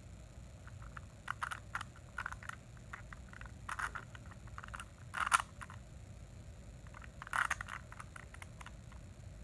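Plastic Rubik's cube being turned by hand: irregular clicks and clacks as the layers rotate, in short clusters, with a louder clack about five seconds in and another burst about seven and a half seconds in.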